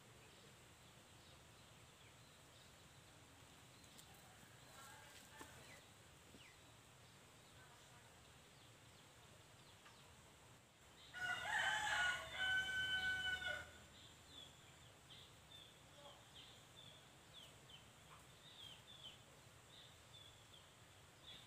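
A rooster crowing once, a drawn-out call of about two and a half seconds starting some eleven seconds in, over a quiet background with faint short chirps.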